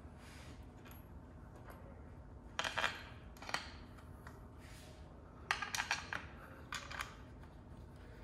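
Small metal hardware clinking and rattling as it is handled, in a few short bursts of clicks over a faint background.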